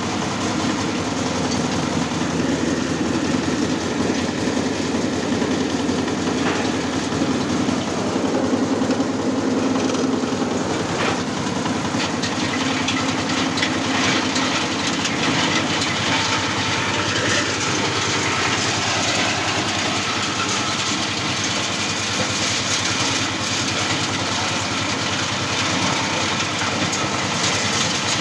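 Engine-driven areca nut peeling machine running steadily at low throttle, its engine hum mixed with a constant rattle of dried nuts and husks tumbling through it; the rattle grows denser and higher about halfway through.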